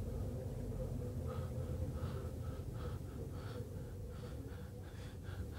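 Low steady hum with faint soft sounds repeating every half second or so.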